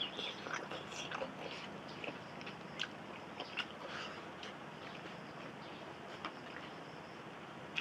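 A person chewing and biting food close to the microphone, with many small scattered mouth clicks, busier in the first few seconds.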